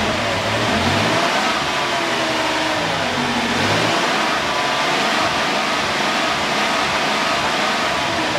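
2006 Dodge Caravan's 3.3-litre V6 held at a light rev, its pitch wavering up and down. The engine is misfiring under the rev, a cylinder-one misfire from worn spark plugs, wires and coil not giving enough spark.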